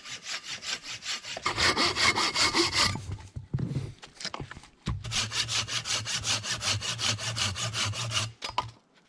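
Folding hand saw cutting through a branch of wood in quick, even back-and-forth strokes. It pauses about three seconds in, starts again about two seconds later, and stops shortly before the end.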